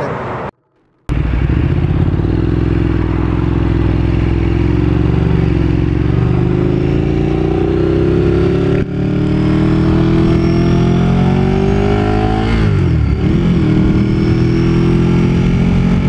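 Motorcycle engine accelerating on the road, its note climbing steadily for several seconds, with a short break about nine seconds in and a dip and recovery of the pitch around thirteen seconds, as with a gear change. Recorded through a helmet-mounted microphone fitted with a fluffy windscreen to cut wind noise. The engine comes in after a brief silence about a second in.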